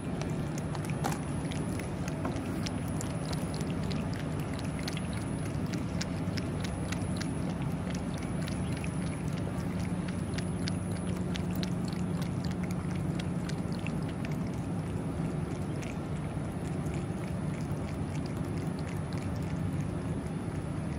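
A cat eating close up, lapping broth and chewing wet food: quick, wet clicking mouth sounds, thicker in the first half, over a steady low background hum.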